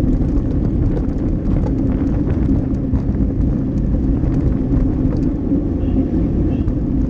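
Wind buffeting the microphone of a handlebar-mounted camera on a road bike at race speed, with tyres running on the road; a steady, heavy rush with faint scattered ticks.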